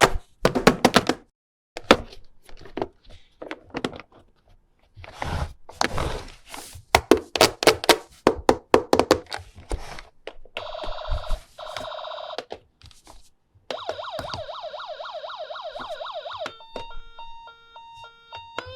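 Hard plastic toy pieces clicking and knocking together for about ten seconds. Then an electronic toy ambulance siren warbles fast in two stretches, followed by a steady electronic tone with short beeps near the end.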